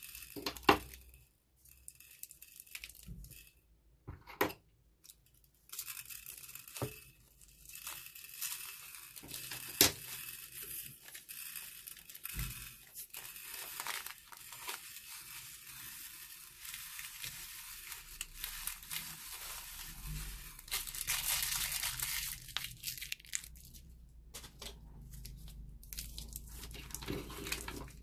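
Tiny plastic beads streaming out of a squeezed plastic piping bag and pattering onto a glass baking dish: a long, even rattling trickle with the bag's plastic crinkling, loudest a little before the end. A few sharp clicks stand out in the first ten seconds.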